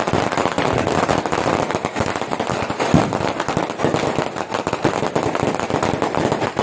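Firecrackers going off in a dense, continuous rapid crackle of pops, with one louder bang about three seconds in.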